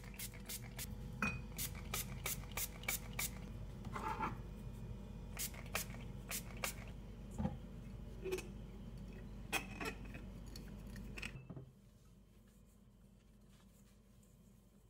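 Light clinks, scrapes and rubbing of a stainless steel pot and glass jars being handled and wiped down with alcohol on a cloth, with scattered sharp knocks, dropping to near silence about eleven seconds in.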